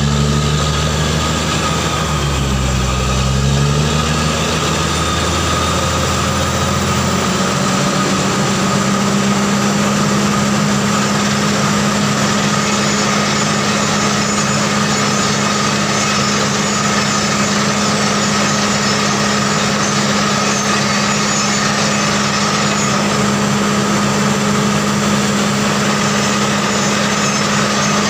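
Truck-mounted borewell drilling rig running as it drills, its engine and air compressor a loud steady drone while water and cuttings are flushed up out of the bore. The engine's pitch wavers for the first several seconds, then holds steady.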